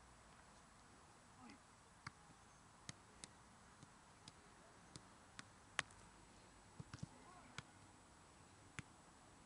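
A football being juggled, with faint, sharp taps of the ball against foot and head coming irregularly, about one or two a second. One touch a little past the middle is louder than the rest, over a faint outdoor hiss.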